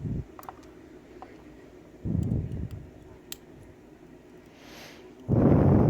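Faint clicks of small pins and tweezers being handled while a lock cylinder is taken apart. Short dull low bursts of handling noise come in between, the loudest near the end.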